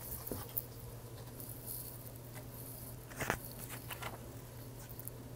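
A paper picture book being handled and opened, with faint paper clicks and a short swish of a page turning about three seconds in, over a low steady hum.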